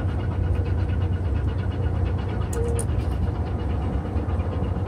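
Steady low rumble at an even level throughout, with a brief faint cry about two and a half seconds in.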